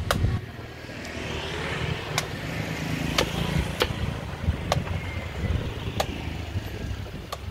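Machete chopping the husk of a green coconut: about seven sharp strikes, spaced unevenly, over a low steady rumble.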